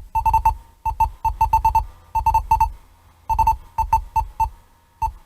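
Electronic music with short, clipped synth notes in rhythmic groups over a low bass thump, playing through the car's speakers from a newly installed Eonon GA5166F Android head unit.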